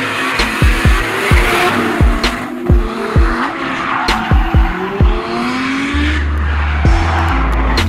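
Nissan Silvia S14 drift car with a 1JZ engine, revving as it slides, tyres squealing, mixed with electronic music. The music has a deep kick-drum beat, and a heavy sustained bass comes in about six seconds in.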